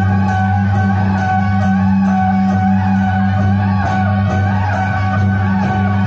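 Loud music: plucked-string instruments over steady low held notes, with a regular beat.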